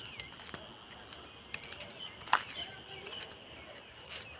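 Short bird chirps, scattered over a steady high-pitched drone, with footsteps on paving and one sharp click a little past two seconds in.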